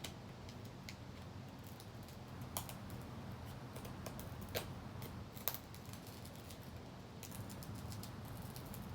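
Light clicks and taps of small hard parts of a broken phone being handled and pried at: scattered ticks, a few sharper ones about two and a half, four and a half and five and a half seconds in, and a quick run of them near the end.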